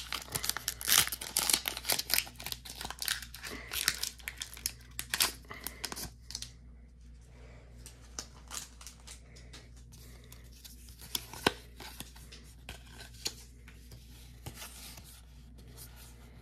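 Pokémon booster pack's foil wrapper being torn open and crinkled: a dense run of tearing and crackling for about the first six seconds, then sparser soft clicks and rustles as the cards are handled.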